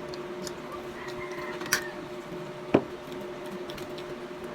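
A few light clicks and taps of eating utensils or skewers against a plate, the sharpest about two and three-quarter seconds in, over a steady low hum.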